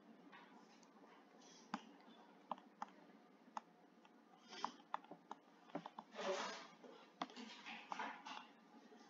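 Faint clicks and taps of a stylus on a tablet screen, then a few short scratchy strokes as the stylus writes.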